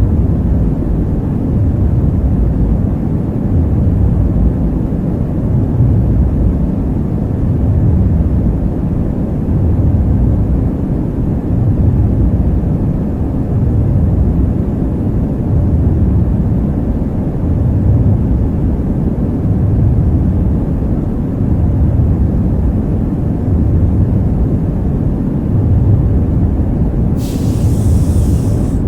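Deep, steady rumble of a starship-cabin ambient soundtrack, swelling and easing about every two seconds, with a short high hiss near the end.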